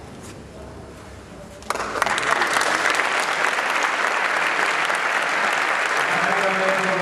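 Audience applause breaks out suddenly about two seconds in and carries on steadily. A voice is heard under it near the end.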